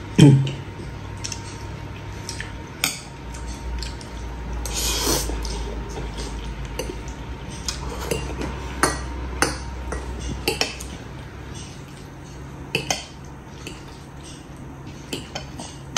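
Metal fork and spoon clinking and scraping against a ceramic bowl while spaghetti is twirled and eaten, in scattered sharp clicks.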